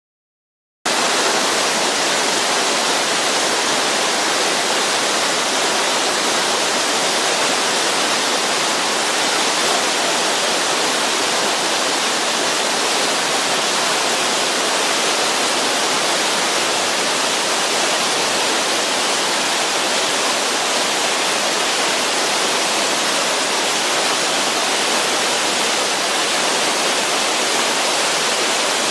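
Ōnamedaki waterfall's water rushing steadily, an even full roar that cuts in abruptly about a second in.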